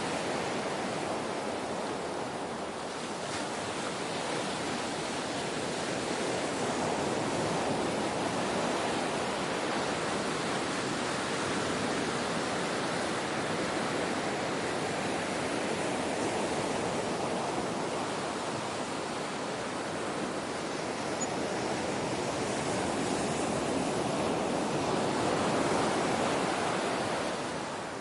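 Ocean waves breaking and washing in a steady rush of surf, swelling and easing slowly, one swell building to its loudest a little before the end.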